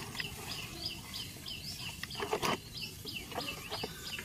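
A bird calling over and over, a short falling chirp about three times a second. A brief clatter of knocks from handling the wet fish trap over a plastic bucket comes a little past halfway.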